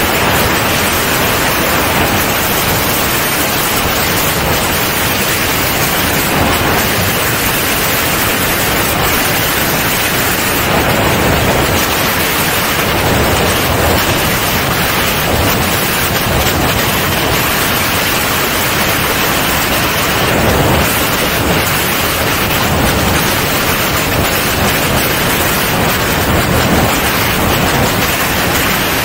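Steady, loud rush of slipstream wind over a camera mounted outside the wing of a C42 ultralight in flight, a constant noise with no clear engine note standing out.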